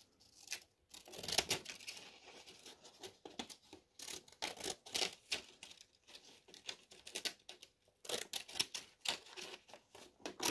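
Scissors cutting a strip of white paper: a run of short, crisp snips, with a lull partway through.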